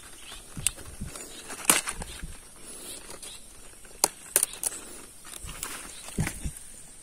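Crisp leaf stalks of a leafy cabbage plant snapping as they are broken off by hand: several sharp cracks amid leaf rustling. A few soft footsteps on dry soil near the end.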